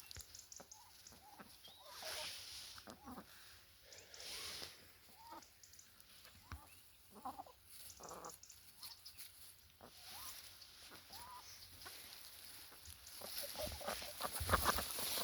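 Chickens clucking faintly now and then, with short scattered calls, and a louder stretch of noise near the end.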